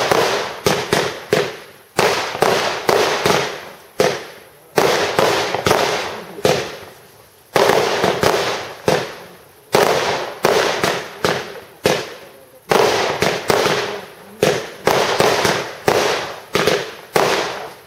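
Aerial fireworks bursting in quick succession: a steady string of sharp bangs, one or two a second, each trailing off in a long echo.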